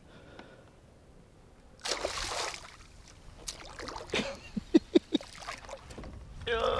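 A big red drum (redfish), hooked and brought alongside a kayak, thrashing at the surface. There is a loud splash about two seconds in, then a run of sharp splashes and knocks in the water.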